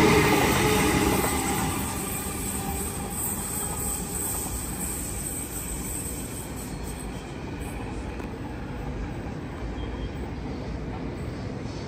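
A train running past, loudest at the start and fading over the first couple of seconds as it moves away, leaving a fainter steady noise.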